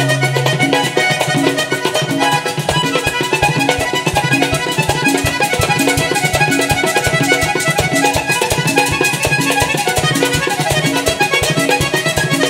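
Live vallenato-style music: a diatonic button accordion playing an instrumental passage with no singing, over a steady beat of bass and hand percussion.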